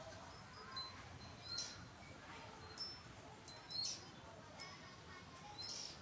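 Oriental magpie-robin giving a series of short, high chirps and whistles, some rising, about a second apart.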